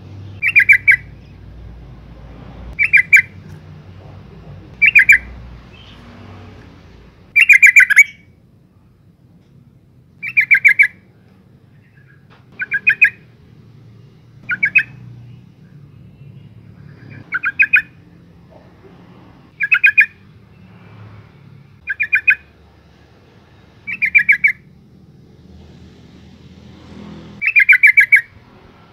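Female yellow-vented bulbul calling: a short, stuttering chatter of rapid notes, repeated about every two seconds, twelve times.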